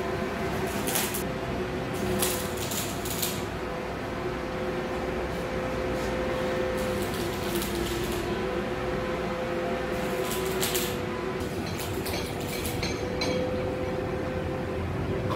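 Steady machine hum with a low drone, over which a cloth brushes and scrapes along the steel bed and carriage of a metal lathe in short strokes every second or two.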